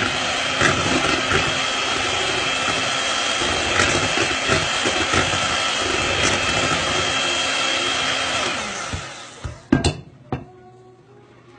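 Electric hand mixer running steadily with a high whine, its beaters whisking cake batter in a glass bowl. The motor winds down about eight seconds in, followed by two sharp knocks.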